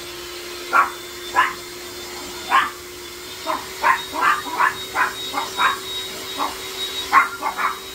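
Chihuahuas barking repeatedly, a few separate barks, then a quick run of yaps about halfway through and more near the end, over the steady hum of an electric hand mixer beating egg whites.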